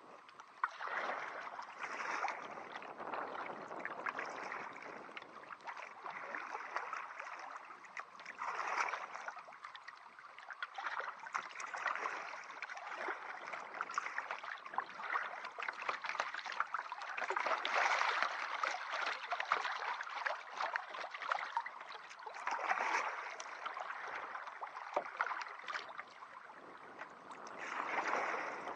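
Water splashing and gurgling against a kayak in choppy, turbulent eddy water of a tidal river current, with paddle splashes, swelling louder and softer every few seconds.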